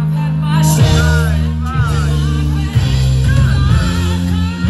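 Dance-pop music with a singing voice over a steady bass line, played from a DJ setup through party speakers.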